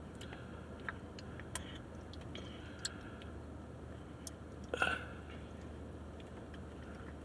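Steady low hum of a car's interior, with faint clicks and smacks of a small child's mouth chewing a sour snack, and one brief voice sound about five seconds in.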